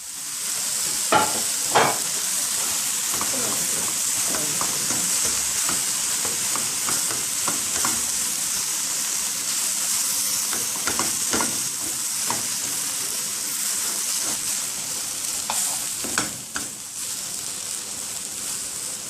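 Chicken pieces and vegetables sizzling steadily in olive oil in a pot while being stirred, with a few sharp knocks of the spoon against the pot, a couple about a second in and more in the second half.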